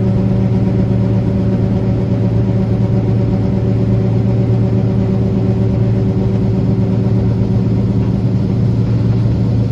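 Farm machinery engine running steadily at a constant speed, an even, deep hum.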